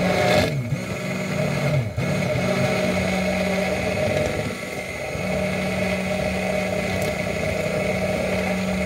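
Immersion blender motor switched on abruptly and running steadily in a tall cup of egg yolk and mustard, its pitch sagging briefly a few times as the blade loads. Oil is being drizzled in slowly to emulsify homemade mayonnaise.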